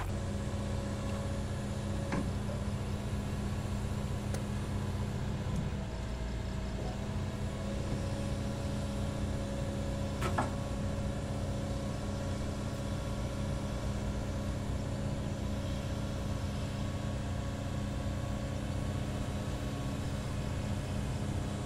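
SANY excavator's diesel engine running steadily at a constant pitch, with a short click about two seconds in and another about ten seconds in.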